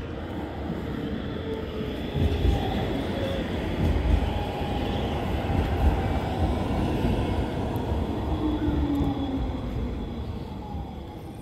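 A tram passing close by: a rumble of wheels on rails that swells and then fades, with whining tones that slide down in pitch as it goes past.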